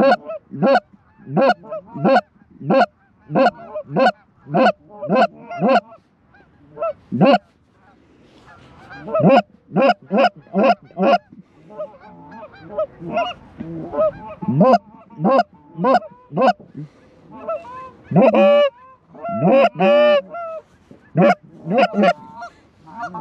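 Hunters' goose calls blown in loud, rhythmic Canada goose honks, about one every 0.7 s at first, then faster runs and denser overlapping honks and clucks, calling to a flock of geese working over the decoys.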